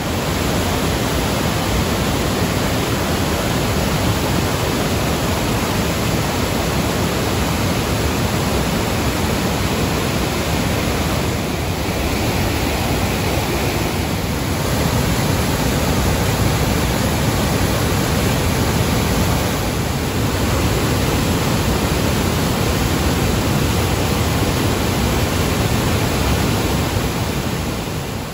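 A multi-tiered river waterfall rushing with a loud, steady roar of falling and churning water, its level shifting slightly a few times.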